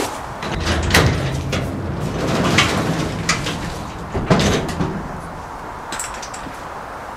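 Metal up-and-over garage door being lifted open: a low rattling rumble lasting a few seconds, with a sharp knock about a second in and a clunk about four seconds in.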